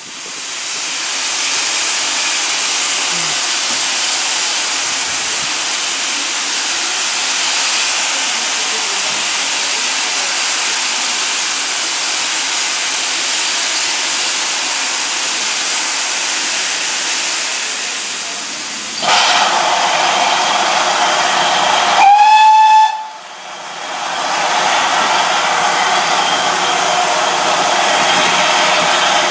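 Steam locomotive giving off a loud, steady hiss of escaping steam, broken about two-thirds of the way through by one short whistle blast, about a second long, with a slight rise in pitch at its start, after which the hiss carries on.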